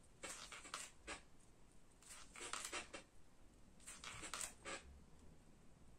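Faint scratchy rustling of a water brush worked on watercolour paper and wiped on a paper towel, in three short bursts.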